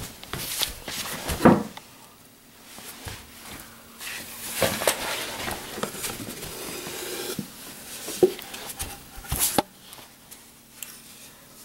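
Scattered knocks and rustling from a handheld camera moving and bumping about close to furniture, over a faint steady hum.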